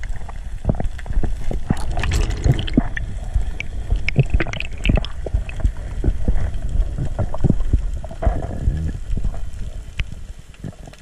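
Underwater noise heard through a GoPro's waterproof housing as a diver swims: water swishing and gurgling against the housing, with irregular clicks and knocks, quieter near the end.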